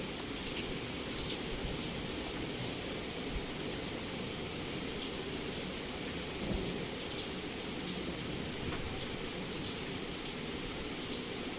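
Heavy rain pouring against a window: a steady hiss of rainfall with scattered sharp taps of drops striking the glass.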